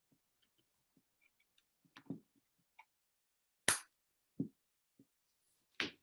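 Scattered faint clicks and a few short knocks, the loudest about three and a half seconds in.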